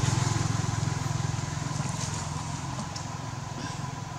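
An engine running with a steady low drone and a fast, even pulse, fading gradually as it goes.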